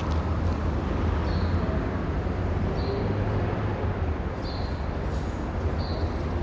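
Stock BMW M240i's turbocharged straight-six engine idling steadily just after start-up, a constant low rumble.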